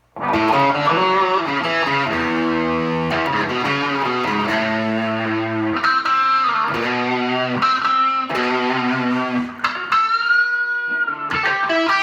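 Electric guitar, a Telecaster with a Seymour Duncan Lil '59 bridge humbucker, played through distortion: overdriven chords and single-note lines with string bends, including a held bent note about ten seconds in.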